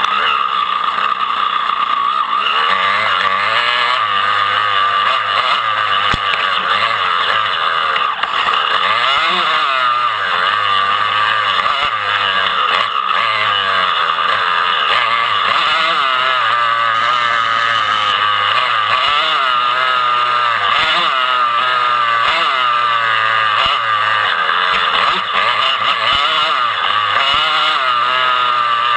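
Dirt bike engines running hard on a motocross track, the revs rising and falling over and over as the bikes accelerate, shift and back off.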